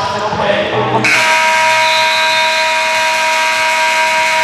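Gym scoreboard buzzer sounding one long, steady blast of several fixed pitches, starting abruptly about a second in, after a moment of court noise.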